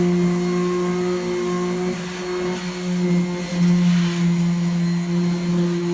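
Steady hum of a small electric motor running at a constant pitch.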